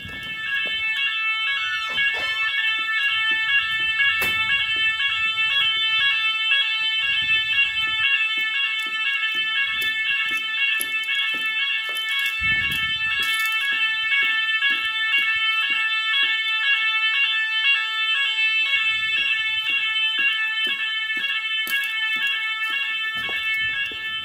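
Roshni fire alarm sirens sounding the building's evacuation signal, a loud, fast, regularly pulsing multi-tone alarm. It grows louder about half a second in.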